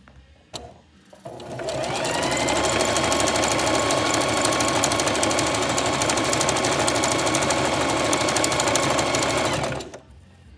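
Singer Heavy Duty sewing machine starting up with a rising whine, then running steadily at speed with a fast needle rattle as it stitches a seam through nylon mesh netting, and stopping suddenly just before the end. A single click comes shortly before it starts.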